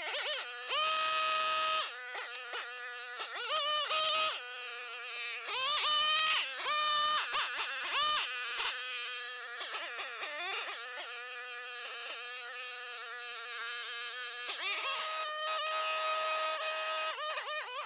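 String trimmer whining as it cuts weeds, its motor repeatedly speeding up to a steady high pitch and dropping back as the throttle is pulsed. The longest stretch at full speed comes near the end.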